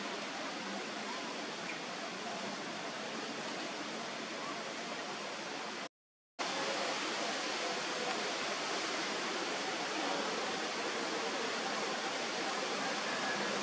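Steady outdoor background hiss, like rushing water or wind, broken by a sudden half-second gap of silence about six seconds in.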